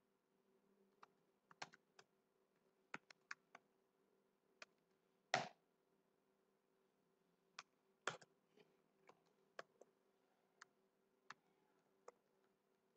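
Faint, irregular keystrokes on a computer keyboard, about twenty clicks, as commands are typed into a switch's command line. One louder, longer key strike comes about five seconds in.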